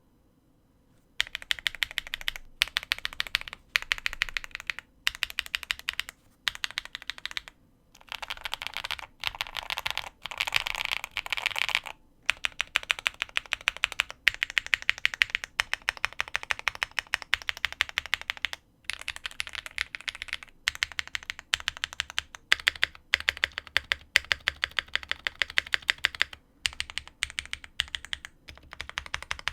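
Typing on a QK75 mechanical keyboard built with Gateron x Swagkey Pure Berry switches, an FR4 plate, full foam and GMK keycaps. Fast runs of keystrokes with short pauses start about a second in.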